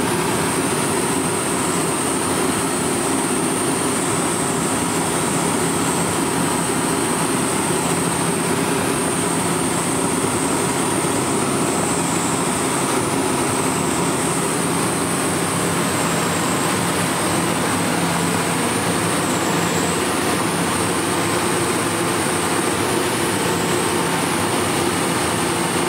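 Steady drone of a Dynamic WT9 ultralight's piston engine and propeller, heard inside the cockpit in flight, with a thin high whine running over it.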